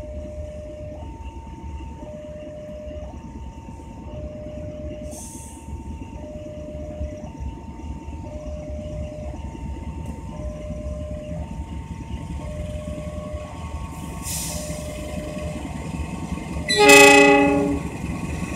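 A slow-moving passenger train rumbles past while a railway level-crossing alarm sounds a two-tone signal, alternating high and low about once a second. About 17 seconds in, the locomotive gives one short, loud blast of its horn.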